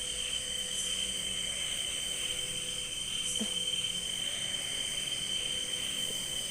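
Night insects, crickets among them, trilling in a steady high chorus at several pitches. A faint tap about three seconds in.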